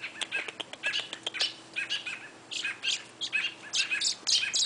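Songbirds giving rapid, repeated sharp chirps in agitated alarm, mobbing a cat that has caught a baby robin.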